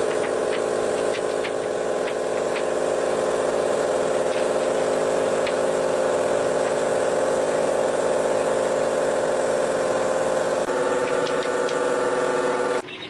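A power tool's motor running steadily with a mechanical hum and a few light ticks. Its tone shifts slightly about ten and a half seconds in, and it stops abruptly near the end.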